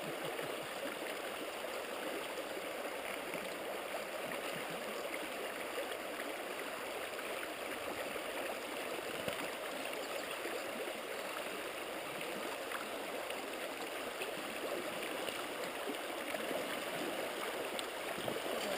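Shallow river riffles rushing steadily over rocks.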